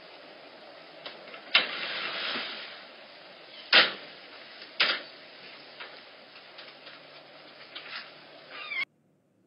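Security-camera microphone hiss with several sharp knocks, the loudest about one and a half and four seconds in, as bobcat kittens move about their wire-and-wood enclosure. A short high wavering sound comes just before the audio cuts off suddenly near the end.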